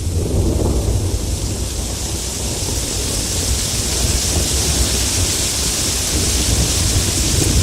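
Heavy rain falling steadily, a dense even hiss with a low rumble underneath that swells briefly near the start.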